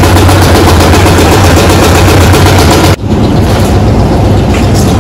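Concrete mixer's engine running loudly with a fast, even rattle and a deep hum. About three seconds in the sound cuts off abruptly and a similar engine sound carries on a little quieter.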